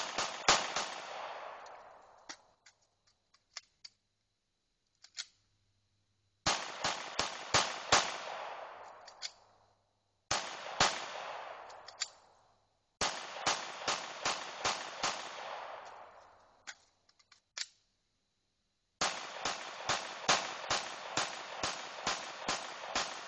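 Glock 21 .45 ACP pistol fired in rapid strings of shots, several a second, with pauses of a few seconds between strings and faint clicks during the pauses.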